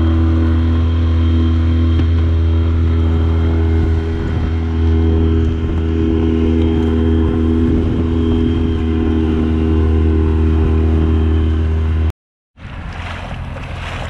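Small outboard motor on an inflatable dinghy running steadily at speed: a constant drone over rushing water from the wake. Near the end it breaks off abruptly, giving way to water splashing against the hull and wind.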